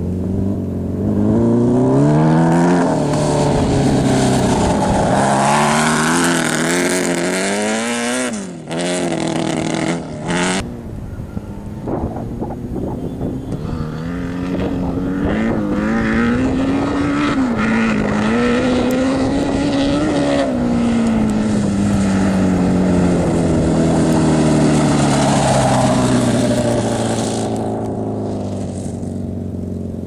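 Honda Blackbird inline-four motorcycle engine in a dune buggy, revved hard and climbing in pitch in steps through the gears. It briefly drops out twice about a third of the way in, then revs up and down again, and falls in pitch and fades as the buggy pulls away near the end.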